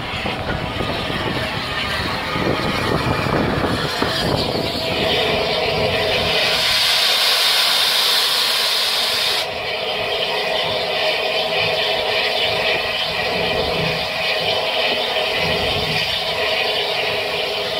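Steam train: wheels clattering for the first few seconds, then a loud hiss of escaping steam from about five seconds in that cuts off suddenly after about four seconds, leaving a steady hum.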